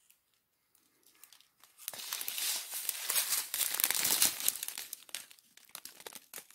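Strip of small plastic zip bags of diamond painting drills crinkling as it is handled. Faint and sparse for the first two seconds, then a dense crinkling for about three seconds, trailing off into scattered crackles.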